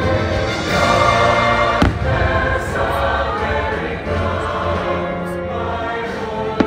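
Fireworks show soundtrack: patriotic orchestral music with a choir singing long held chords over the park speakers. A single firework bang cuts through about two seconds in, and another near the end.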